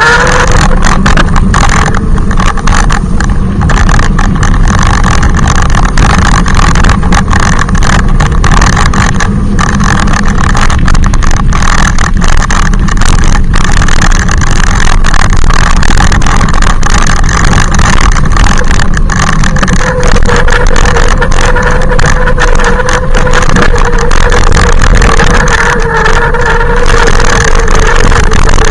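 Electric bike motor whining steadily while riding at speed, very loud, over a heavy low rumble. The whine holds a steady pitch, and one tone comes through more strongly from about two-thirds of the way in.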